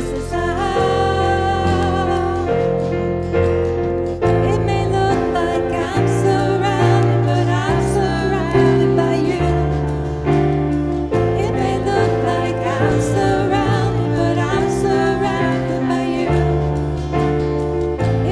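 Live worship band music: bass and keyboard chords changing every second or two, with a singer's voice over them.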